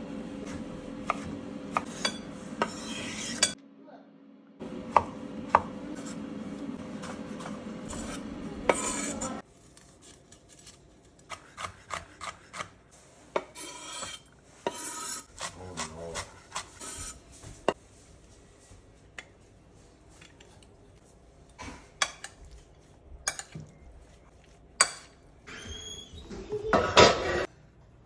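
Knife cutting, chopping and scraping on a wooden cutting board: scattered sharp knocks of the blade on the board, with a steady hum underneath for the first nine seconds or so and a louder scrape near the end.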